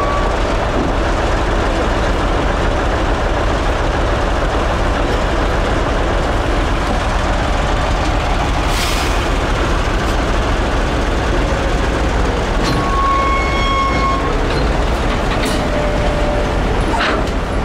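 Tractor diesel engine running steadily under load as it draws a heavy semi-trailer down steel unloading ramps, with a few knocks and a brief metallic squeak.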